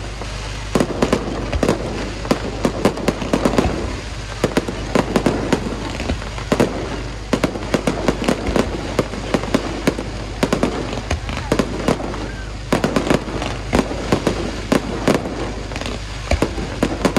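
Fireworks display: rapid volleys of bangs and crackles in clusters every second or two.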